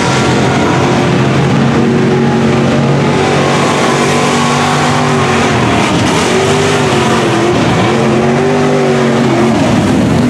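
Lifted mud trucks' engines running hard at high revs while plowing through a mud pit, the pitch dipping and climbing again a few times around the middle as the throttle is worked.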